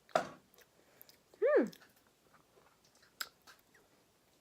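Biting and chewing a frozen gummy bear popsicle: a few sharp clicks and crunches, with one short pitched vocal sound that rises and falls about a second and a half in.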